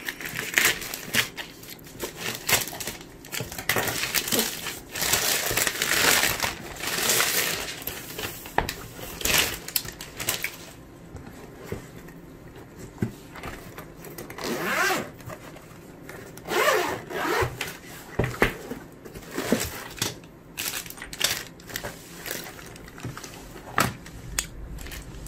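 Scissors cutting and tearing open a plastic mailer bag, with rustling, crackling plastic packaging. Then a zippered hard case is handled and opened, and plastic bags of small accessories crinkle.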